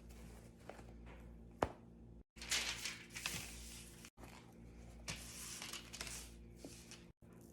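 Rustling and a sharp click from hands handling things, in short clips separated by brief dead gaps.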